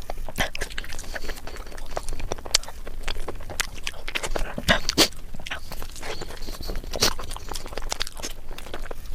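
Close-miked chewing: irregular crunches and clicks as a mouthful of food is eaten.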